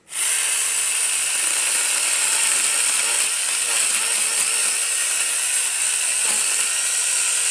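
Battery-powered brushless mini chainsaw (Kamolee 8-inch) running at full speed, its chain rattling; it starts suddenly and holds a steady level.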